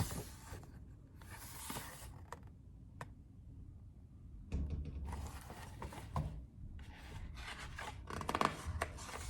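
Paper rustling and rubbing as the pages of a picture book are handled and turned, in several short spells with a few light clicks.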